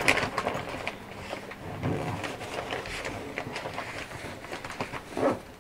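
Rustling and scuffing of a fabric duffel bag as hands stuff cloth sacks into it and work its opening, with a few soft clicks.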